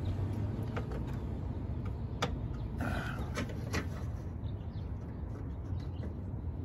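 Scattered sharp plastic clicks from a Land Rover LR3's fender flare and its old panel clips being squeezed and worked by hand from behind, over a steady low rumble.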